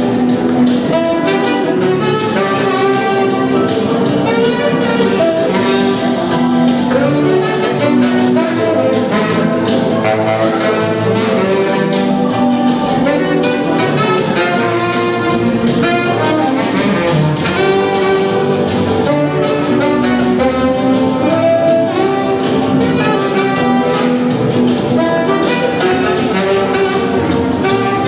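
Jazz-blues played live, with a saxophone carrying the melody in a run of held and moving notes over continuous accompaniment.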